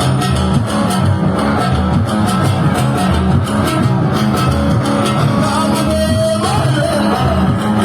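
Party music played by a band: plucked strings and bass over a steady, even beat.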